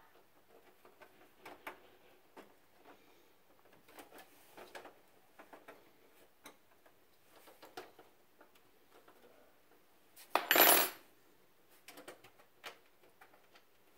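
Small metallic clicks and taps of hands working screws and hardware inside a steel computer case, with one much louder metallic clatter, lasting under a second, about ten and a half seconds in.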